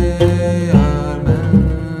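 Background music with a steady beat of about two low notes a second under a couple of held tones.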